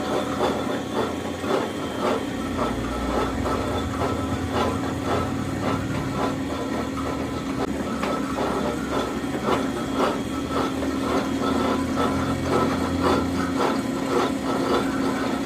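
Lathe boring the weld-built-up kingpin bore of a truck I-beam axle: the machine runs with a steady hum and tone while the cutting tool ticks regularly, about two or three times a second, as it cuts through the weld.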